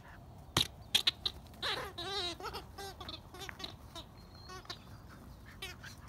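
Puppies playing, with short whining yips and squeals, the clearest about two seconds in, over small scuffling clicks.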